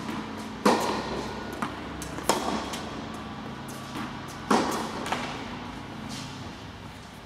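Tennis ball hit back and forth in a rally on an indoor court: three loud racket strikes about two seconds apart, each with a ringing echo in the hall, and softer knocks of the ball between them.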